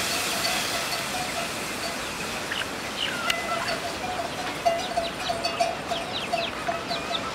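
Chickens clucking, with quick high chirps that come thick and fast from about two and a half seconds in. A hiss from the curry pot on the wood fire, just after liquid is poured in, dies away over the first couple of seconds.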